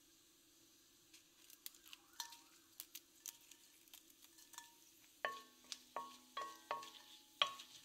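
Faint crackling of cumin seeds spluttering in hot oil in a stainless steel pot. From about five seconds in, a wooden spoon stirs and knocks against the pot several times, each knock ringing briefly.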